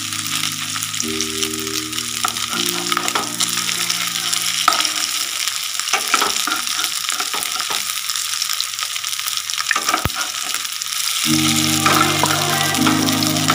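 Fish fritters sizzling steadily in hot oil in a frying pan, with the spatula now and then scraping and knocking against the pan. Soft background music chords play at the start and again near the end.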